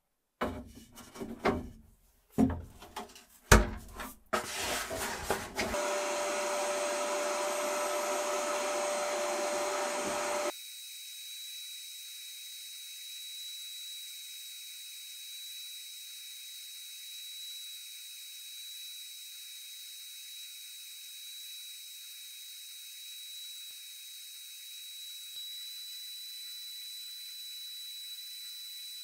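Several sharp knocks and clatters of a tool or workpiece being handled, then a small power tool runs steadily with a held hum for about five seconds and cuts off abruptly. After that comes a fainter steady hiss with a thin high whine.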